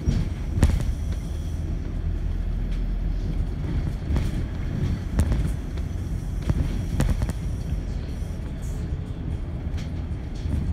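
Double-decker bus on the move, heard from inside on the upper deck: a steady low engine and road rumble with an occasional knock or rattle from the body.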